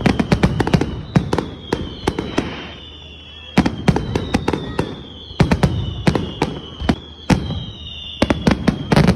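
Fireworks going off in repeated clusters of sharp bangs and crackles, with long whistles slowly falling in pitch over them.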